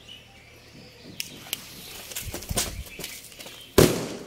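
Small Diwali firecracker: its lit fuse spits and crackles for a couple of seconds, then it goes off with one short bang near the end, which falls flat.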